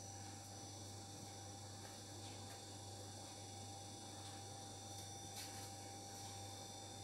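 Steady low electrical hum with a faint steady higher tone, as quiet room tone. A few faint soft handling clicks, the clearest about five seconds in.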